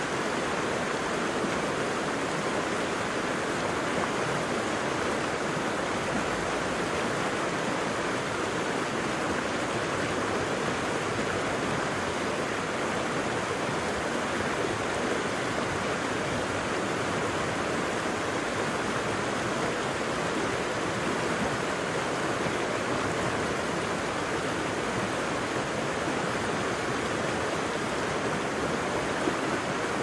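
Steady, even rush of falling and flowing water from Curly Creek Falls and the river below it.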